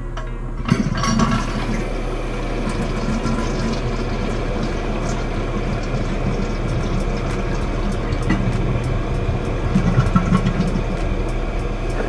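Toilet tank refilling through a newly installed fill valve: a steady rush of water with a low hum, briefly louder about a second in and again near the end.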